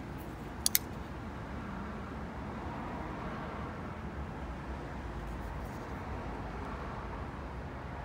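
Brian Nadeau / Sharp By Design Hurricane titanium frame-lock flipper knife flicked open: the tanto blade swings out on its bearings and locks up with a sharp double click under a second in. A steady low rumble runs underneath.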